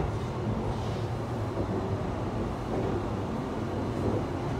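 Steady low running rumble of an E657 series electric train under way, heard from inside the car's deck area.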